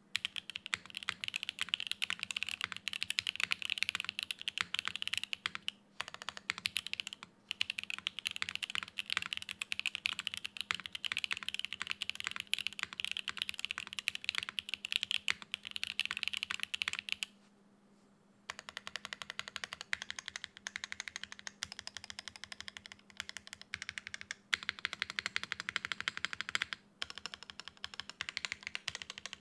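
Rapid typing on a Geon Frog Mini 60% mechanical keyboard fitted with stock Everglide Tourmaline Blue V3 switches on an aluminium plate, with GMK keycaps and no sound dampening. The key strokes run in dense streams, broken by a few short pauses, the longest about a second long a little past the middle.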